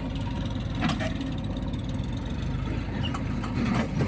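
Diesel engine of heavy earthmoving machinery running steadily at low revs. A few sharp knocks come about a second in and again near the end.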